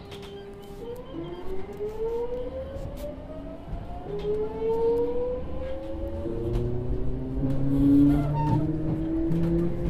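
Hitachi GTO-VVVF traction inverter of a Sotetsu 7000 series electric train whining as the train pulls away and accelerates, heard from inside the motor car. Several tones climb together in pitch, then change to steadier stepped notes after about six seconds.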